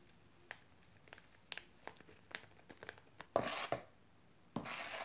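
A metal utensil stirring flour and vanilla sugar in a plastic bowl: light scattered taps and clicks, then two short scraping rustles near the end, mixing the dry ingredients.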